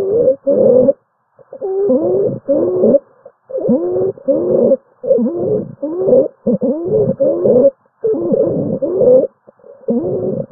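Stridor breath sounds: a pitched noise that glides in pitch with each fast breath, coming in quick pairs with short gaps and repeating throughout. Stridor is the sign of a narrowed upper airway.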